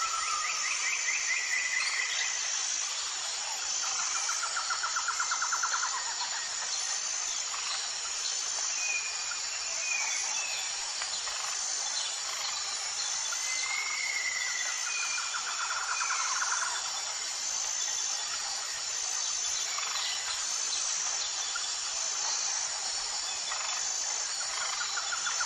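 Natural ambience: a steady high insect buzz with a faint regular pulse, with birds calling over it in several rapid trills and a few short whistles.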